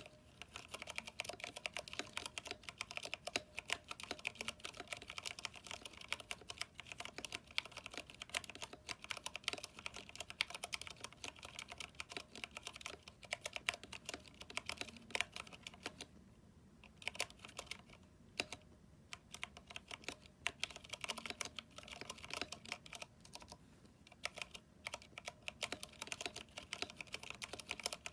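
Steady fast typing on a mechanical keyboard with Cherry MX Brown switches and PBT keycaps, a rapid run of key clacks with two short pauses a little past the middle.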